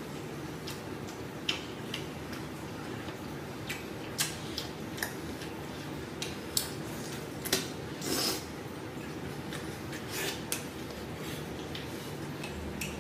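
A man eating a braised goat leg: chewing and lip-smacking with a scattered string of short sharp clicks and smacks as he bites and tears meat off the bone, one longer smacking sound about eight seconds in.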